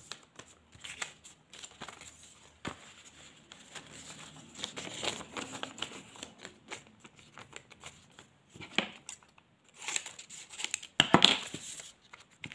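Thin paper pattern pieces rustling and crinkling as they are picked up, unfolded and handled, with scattered small clicks and the loudest crinkling near the end.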